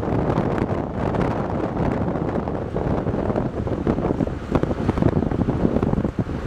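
Wind buffeting the camera microphone in uneven gusts, over the rush of choppy sea and surf breaking on the reef.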